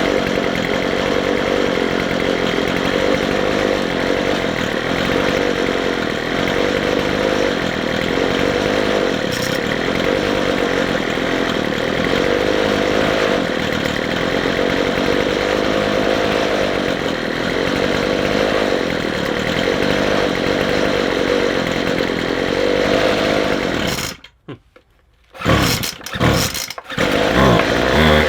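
McCulloch 250C two-stroke strimmer engine running at a rough tick over on freshly adjusted carburettor jets. About 24 seconds in it cuts out suddenly, then fires again in a few broken bursts and catches. The owner blames the poor idle on a hardened carburettor diaphragm.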